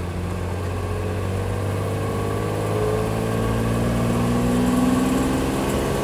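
The 1963 Maserati 3500 GT Vignale Spyder's 3.5-litre Tipo 101 straight-six, heard from the open cockpit as the car pulls smoothly under acceleration. The engine note rises steadily in pitch and grows louder, then drops back a little near the end.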